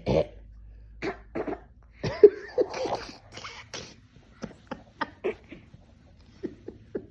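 Fake coughing: a string of short, put-on coughs and huffs, the loudest a little over two seconds in.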